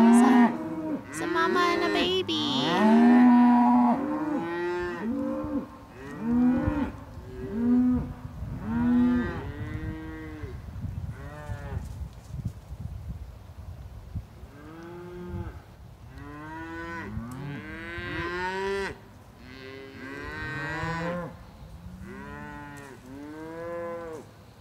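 A herd of cattle, cows and calves, mooing over and over: many separate calls of about a second each, rising and falling in pitch, often overlapping, loudest in the first few seconds.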